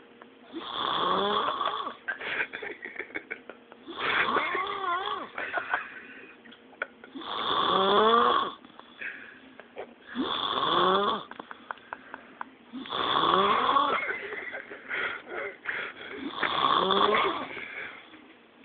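A sleeping man snoring loudly, six snores about three seconds apart, each with a wavering, bending pitch, and a softer rattling breath between them.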